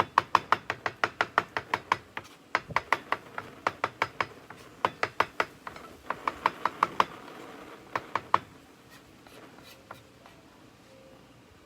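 Kitchen knife chopping rapidly on a cutting board, about six strokes a second, in several quick runs with short pauses, stopping about eight seconds in.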